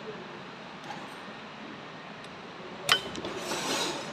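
A single sharp metallic clink about three seconds in, followed by about a second of scraping, as a metal tool is worked against the brush holder plate of a 12 V starter motor.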